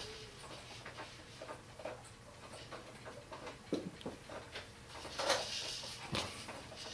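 Two house cats in a tense standoff: a brief low cat cry about four seconds in and a short hiss-like burst a little after five seconds, over scattered small ticks and taps.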